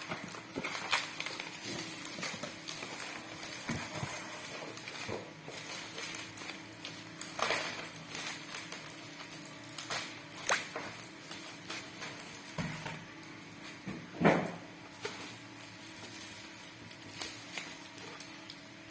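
A laptop replacement keyboard's packaging being handled and opened: scattered rustles, taps and clicks over a steady low hum, the loudest a knock about fourteen seconds in.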